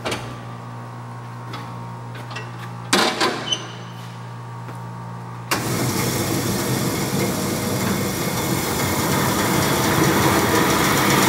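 Doall 1612-0 vertical bandsaw being shifted into its high speed range: a low steady hum with a few sharp knocks from the shift controls, then about five and a half seconds in the three-phase motor comes on and the saw runs steadily in high speed, growing slightly louder as it comes up to speed.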